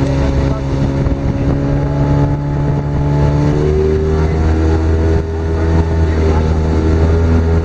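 Tiller-steered outboard motor running steadily as the fishing boat travels upriver, its pitch shifting about three and a half seconds in as the engine speed changes.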